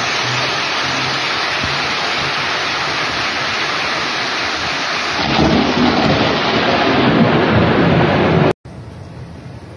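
Heavy rain falling steadily, with a low rumble of thunder building up from about five seconds in. Near the end the sound cuts off abruptly and gives way to a much quieter hiss of rain.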